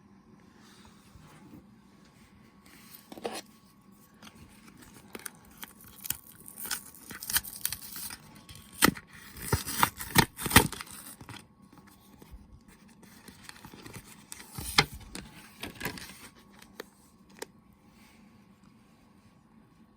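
Plastic-and-cardboard blister packaging of a Pokémon card three-pack being opened: sharp crackles, scrapes and tearing come in bursts, loudest about halfway through.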